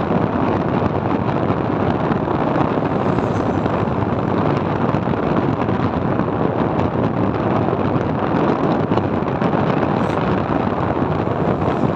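Steady rush of wind over the microphone while riding a motorbike at cruising speed, with the bike's running and road noise underneath.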